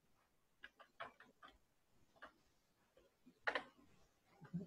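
Slow typing on a computer keyboard: a few faint, separate key clicks, the loudest about three and a half seconds in.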